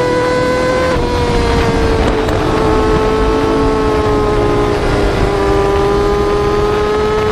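Yamaha R6 sport-bike inline-four engine at high revs, a steady high-pitched note. The pitch drops slightly about a second in and again about five seconds in, then climbs slowly, as in upshifts while accelerating.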